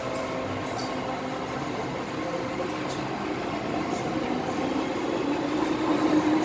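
MTR M-Train electric multiple unit pulling out of a station, heard from inside the carriage. The traction motors whine, rising in pitch and growing louder over the last couple of seconds as the train picks up speed, over a steady running hum.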